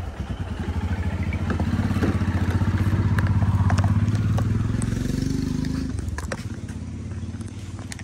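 Motorcycle engine running, growing louder for a few seconds and then easing off to a quieter, steady running about six seconds in, with a few light clicks.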